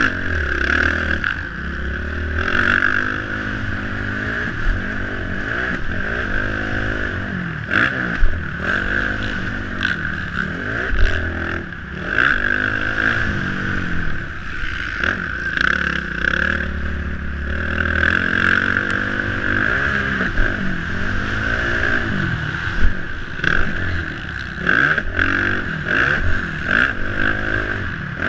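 Motocross dirt bike engine revving up and falling back again and again as the rider accelerates, shifts and brakes around the track, heard from a helmet-mounted camera with steady wind rush. Occasional sharp thumps and clatters cut through, the loudest about 8 and 11 seconds in and several near the end.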